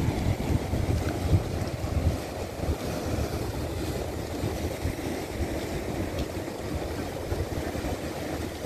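Wind buffeting the microphone in uneven gusts over the steady wash of surf breaking on rocks.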